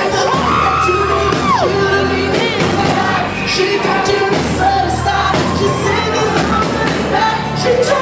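Live concert audio of a male R&B singer over a band with heavy sustained bass, recorded from the crowd in a large hall. The vocal slides between notes, with one long falling slide about a second and a half in, and the crowd whoops and shouts now and then.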